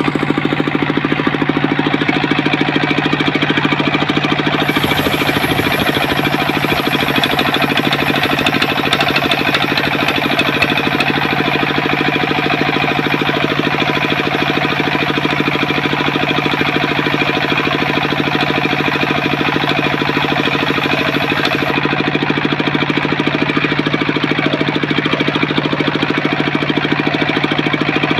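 Homemade circular-saw sawmill running steadily, its motor chugging in a fast, even rhythm. A thin high whine joins in about five seconds in and stops a few seconds before the end.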